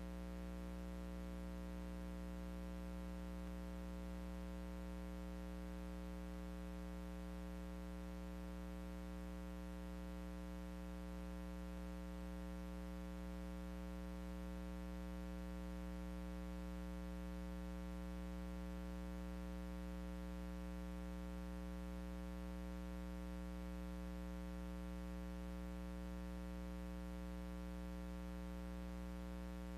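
Steady electrical mains hum and buzz with faint hiss behind it.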